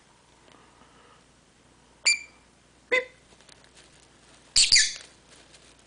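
Pet lovebird giving short, sharp chirps: single calls about two and three seconds in, then a louder double call a little later.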